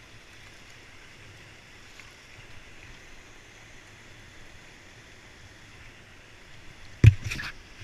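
Steady rushing hiss of white water running through a river rapid. A sudden loud burst of sound comes near the end.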